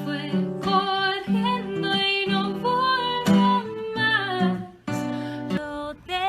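Background music: a song with acoustic guitar and a sung melody.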